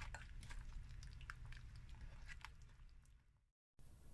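Thick flour-and-egg batter being stirred by hand in a glass bowl: faint wet squelching with light irregular clicks of the utensil against the glass. The sound breaks off briefly near the end.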